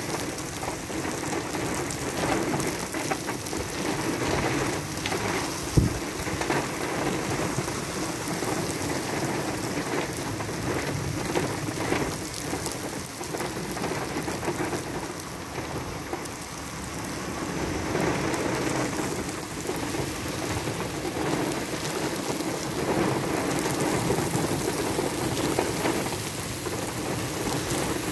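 Heavy monsoon rain pouring steadily, heard from inside a vehicle, swelling and easing a little, with one sharp bang about six seconds in.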